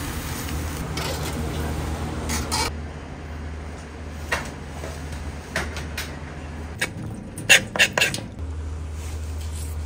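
Kitchen prep sounds over a steady low hum: scattered clicks and knocks of a knife on a cutting board while a small fish is filleted, with a cluster of sharp knocks about three-quarters of the way through.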